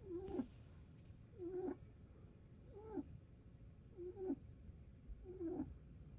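Pet rabbit snoring in its sleep: five short, pitched snores about every 1.3 seconds, each dropping in pitch at its end.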